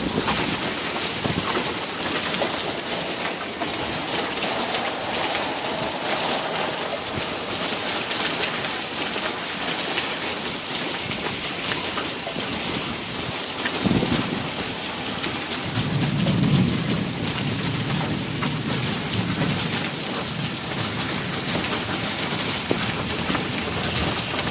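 Steady rain falling, with a sharp thunderclap about fourteen seconds in and a low rumble of thunder for a few seconds after it; the sound cuts off suddenly at the end.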